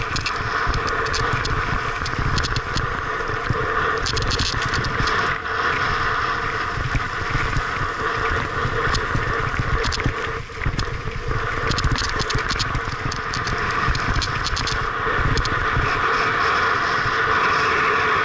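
Mountain bike descending a loose gravel track, its tyres crunching over stones and the bike rattling, with clusters of sharp clicks from stones and parts, over a continuous low rumble on the helmet-mounted camera's microphone. The noise dips briefly about ten seconds in.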